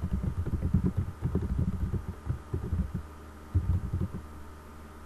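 Typing on a computer keyboard: a quick, uneven run of dull keystroke thuds that pauses about three seconds in, gives a last short burst, and stops about four seconds in.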